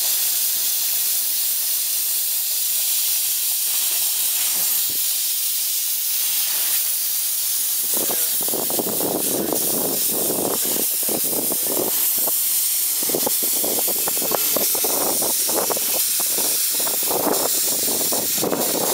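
15 scale live steam locomotive hissing steadily, with steam blowing from its cylinder cocks. From about eight seconds in, a run of uneven puffs and knocks joins the hiss.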